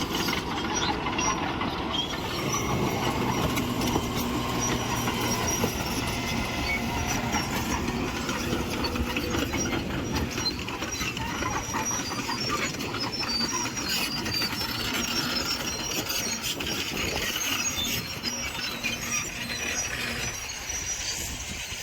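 Crawler bulldozer working: diesel engine running steadily under a dense, continuous clatter and squeak of steel tracks. It fades slightly near the end.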